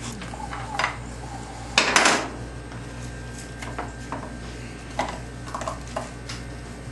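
Dishes and kitchen utensils being handled: scattered light knocks and clinks, with one louder clatter about two seconds in.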